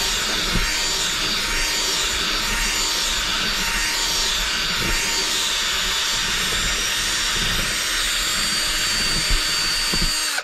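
Cordless drill running steadily under load, its bit grinding into a black armrest mounting panel, with a high motor whine over the grinding noise. It cuts off abruptly at the end.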